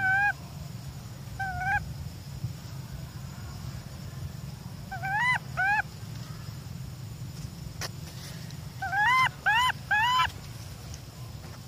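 Infant long-tailed macaque crying: short, high, arching calls that rise and fall, coming in clusters, with a single call, another single, a pair, then three in quick succession about nine seconds in. These are a baby monkey's cries for its mother.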